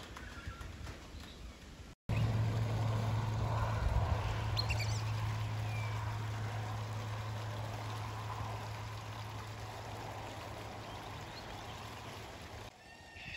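Steady outdoor rushing noise with a low hum, slowly fading, with a few short, high bird chirps about four to five seconds in.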